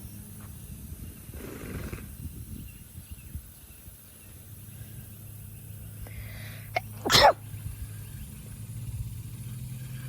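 One loud, short, sneeze-like blast of breath through the nose about seven seconds in. A softer blow of breath comes near two seconds in, and a low steady hum runs underneath.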